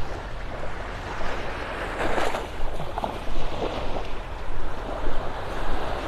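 Small surf breaking and washing up on a sandy beach, in several brief swells, with wind rumbling on the microphone.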